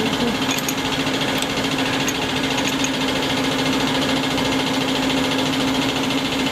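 Bosch EFEP diesel injection pump test bench running, a steady mechanical hum at one constant pitch, with a few light ticks over it in the first few seconds.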